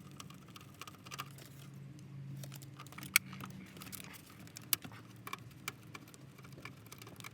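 Light scattered clicks and small metallic rattles of hand tools, screws and dash trim being handled during work inside a car's dashboard, over a faint steady low hum.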